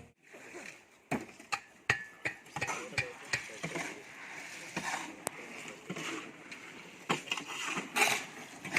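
Irregular sharp knocks and clicks, a scattering of separate strikes with no steady rhythm, from manual construction work with hand tools.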